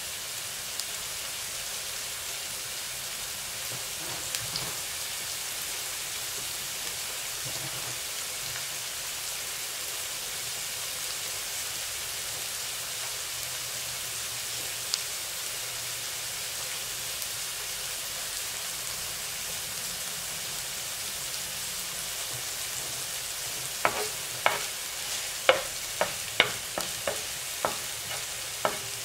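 Sliced red onions sizzling steadily in oil in a nonstick frying pan. About five seconds from the end come about ten sharp clicks and pops.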